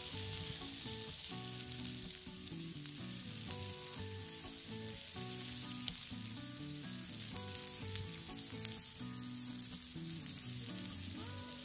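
Green mussels on the half shell with scallion oil sizzling on a charcoal grill, a steady hiss with small pops. Soft background music plays underneath.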